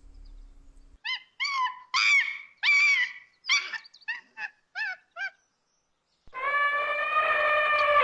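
Animal calls: a run of about a dozen short, high yelping calls, each rising and falling in pitch. After a second's pause comes one long, steady, lower call near the end.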